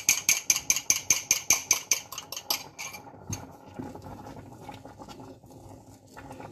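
Rapid, even clicking of a kitchen utensil, about six or seven clicks a second, which stops about three seconds in. It gives way to softer, irregular taps of a wooden spoon stirring rice pudding in a steel pot.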